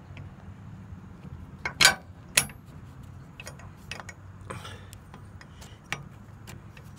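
Metal clicks and clinks of a hitch pin lock being worked onto a 5/8-inch hitch pin in a pickup's receiver hitch, with two sharp louder clicks about two seconds in and lighter ticks after. A low steady hum runs underneath.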